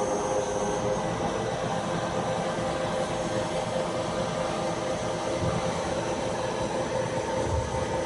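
Washino J-5 CNC lathe running, a steady mechanical whine made of several held tones over a noisy hum.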